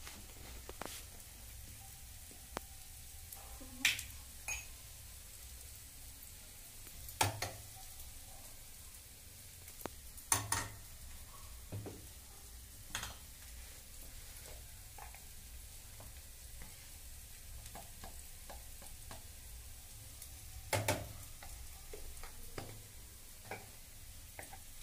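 Masala frying in a pan on a gas burner, a steady faint sizzle, broken by a handful of sharp clicks and knocks from spice containers and their lids being handled, the loudest about ten seconds in and again about twenty-one seconds in.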